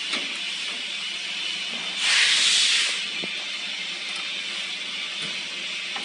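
Compressed air hissing steadily from a hand-held metal pipe with a ball valve held to a port on a screw air compressor's cabinet, with a louder blast of hiss lasting about a second, about two seconds in.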